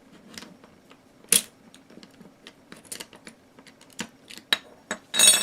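Small hard parts clicking and tapping as an opened airsoft AEG gearbox and its parts are handled on a work surface, with a louder clatter near the end.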